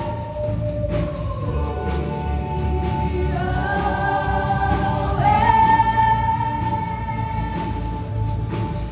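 Stage musical number: voices singing long held notes in harmony over backing music with a steady beat, more voices joining to build a chord about halfway through.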